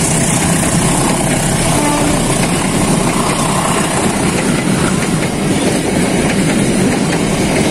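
Passenger train coaches rolling past on the near track: a steady, loud rumble of steel wheels on the rails.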